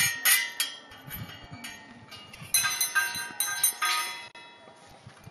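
Clusters of small hanging metal Thai temple bells with heart-shaped clappers jangling and ringing together. There are two bursts of many overlapping clinks: one right at the start, and another about two and a half seconds in that lasts over a second.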